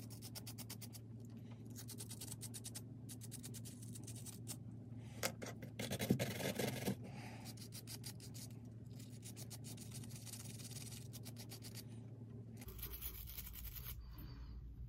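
Small hand wire brush scrubbing corrosion off a rusted metal model-train truck part: rapid, fine scratching strokes, with a louder spell of handling knocks about six seconds in. A steady low hum runs underneath.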